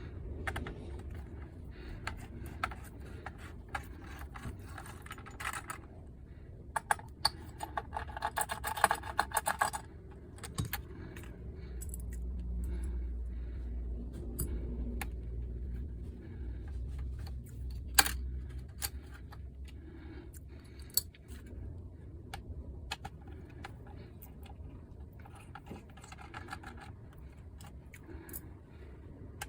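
Small metal console parts and tools handled on a workbench: scattered clicks and light metallic jangling, with a stretch of rattly scraping, during disassembly of a PS5 for thermal paste replacement. A low rumble swells for a few seconds near the middle.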